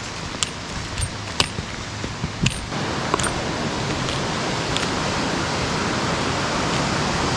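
Rushing mountain stream: a steady hiss of flowing water, with a few sharp clicks over the first couple of seconds. The water sound gets louder suddenly about three seconds in.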